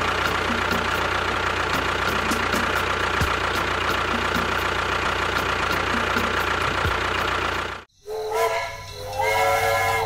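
A steady, hissing engine-like running noise for the miniature tractor, cutting off suddenly about eight seconds in. Then a steam-train whistle gives two blasts, each several tones sounding together as a chord.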